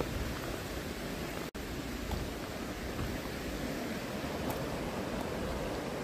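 Steady rushing noise, with a brief cut to silence about one and a half seconds in.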